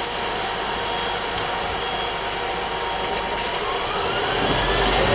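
Scania UNVI Urbis 2.5 DD CNG double-decker bus heard from inside on the upper deck: a steady hum and hiss while it stands at the stop. Near the end a rising whine and louder engine note come in as it moves off.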